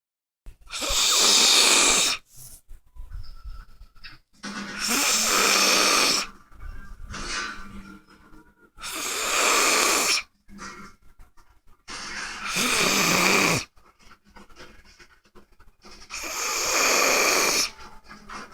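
A sleeping man snoring like a bear: five long, loud snores about four seconds apart, with quieter breaths between them.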